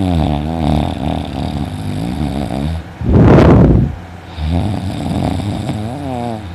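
A man snoring loudly in his sleep: a long breath with a wavering pitch, then a loud rasping snore about three seconds in, then another long wavering breath.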